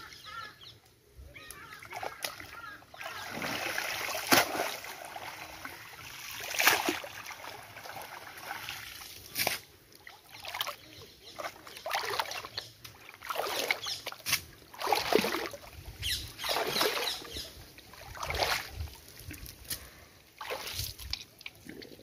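Irregular splashing and sloshing of water and wet mud as a cast net is hauled out of a shallow muddy creek and dragged up a mudbank, with squelching steps in the mud.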